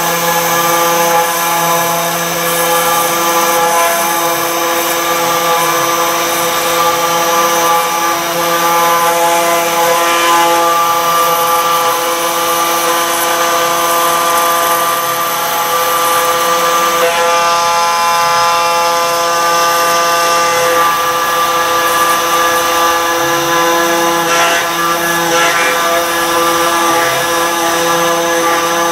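CNC router spindle running steadily at high speed while milling wet stone, a constant whine over a grinding hiss. Its tone changes slightly about 17 seconds in.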